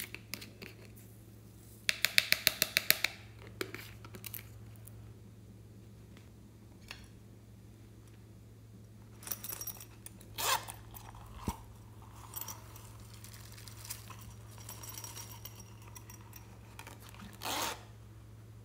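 Small plastic toys and containers handled and opened by hand: a quick run of about a dozen sharp clicks about two seconds in as a plastic bottle cap is twisted, then a few short rasps, with one more near the end, as a silicone watermelon coin purse's zipper is worked open.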